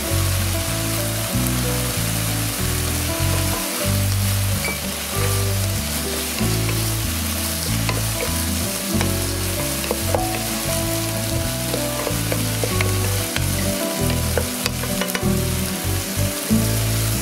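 Broad beans, chicken tenderloin and corn sizzling in a frying pan as they are stir-fried with a wooden spatula, with light scrapes and clicks from the spatula. Background music plays underneath.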